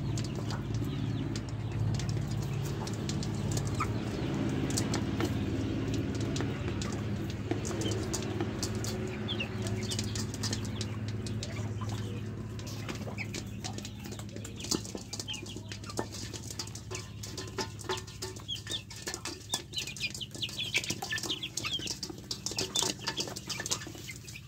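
Young chickens pecking rice from a metal bowl, a rapid irregular ticking of beaks on metal, with soft clucks and short peeps among them. A low steady hum runs underneath and fades out about halfway through.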